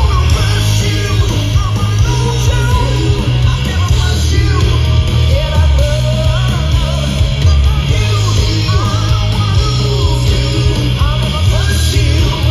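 Live rock band playing loud: electric guitars, bass and drums with heavy low end, and a woman singing over them.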